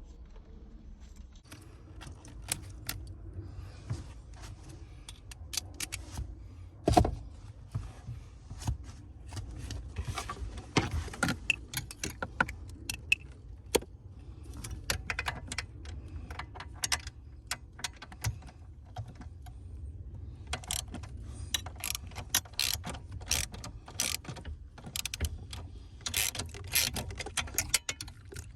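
Irregular metallic clinks, taps and knocks of hand tools and small parts being handled, with one sharper knock about seven seconds in, over a low steady hum.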